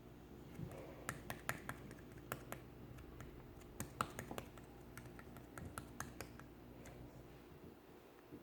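Ivory-coloured slime being squeezed and worked by hand, giving a quick irregular run of small popping clicks, thickest in the first half.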